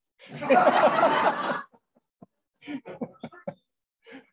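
A group of people laughing: a loud burst for about a second and a half, then scattered chuckles.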